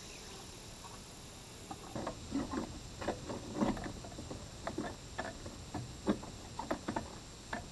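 Old wooden clapboard siding being pried at by hand with a tool: irregular knocks, creaks and scrapes of wood and metal, starting about two seconds in.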